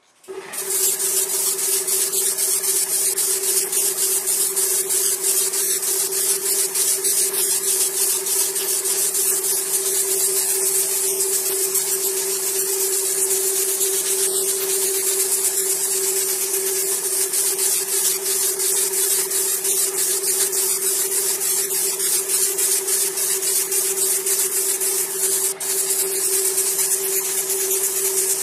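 Airbrush spraying paint: a steady airy hiss that starts suddenly and runs without a break, over a steady hum.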